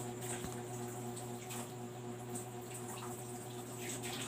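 Quiet room tone: a steady low hum with faint rustles, and a sharp click at the very start.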